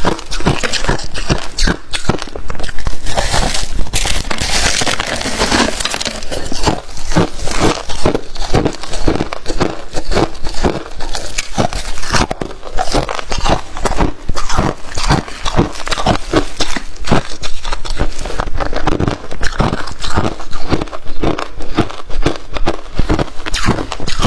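Crunchy freezer frost being bitten and chewed close to the microphone: a continuous run of loud, sharp crunches, several a second.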